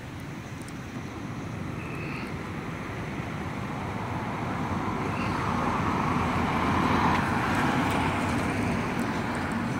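Steady outdoor background noise that slowly swells, loudest near the end, with two brief high chirps, one about two seconds in and one about five seconds in.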